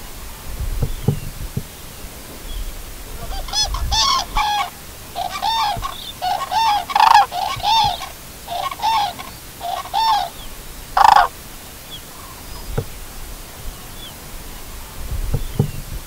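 Cranes calling in flight: a run of about ten trumpeting calls, some overlapping, between about three and eleven seconds in, over a low rumble of wind noise.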